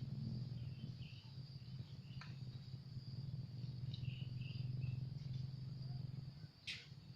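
Insects trilling steadily at a high pitch over a constant low hum, with a few faint chirps and two short sharp ticks, one about two seconds in and one near the end.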